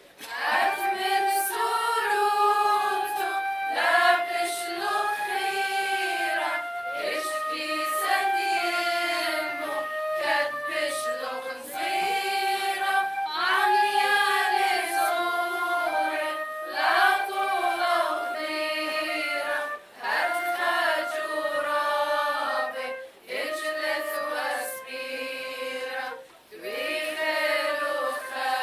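Women's church choir singing a hymn together, in phrases with short breaks between them, accompanied by a flute.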